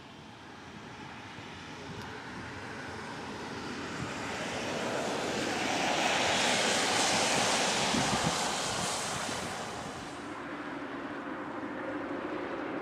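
Cars driving over a railway level crossing: tyre noise swells to a peak about six to nine seconds in, with a few low thumps as the wheels cross the rails, then fades.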